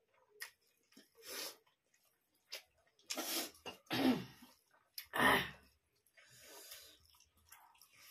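A woman coughing: one short cough about a second in, then three strong coughs between about three and five and a half seconds in, the last the loudest. Small clicks and mouth noises from eating rice by hand come between them.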